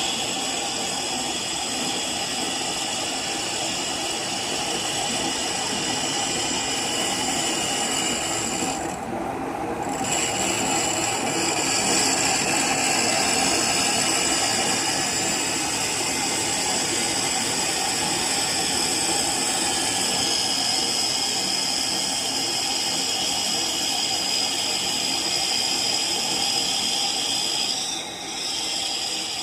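Lathe running and cutting a workpiece: a steady machine noise with a high, steady cutting whine on top. The whine drops out for about a second roughly nine seconds in, and again briefly near the end.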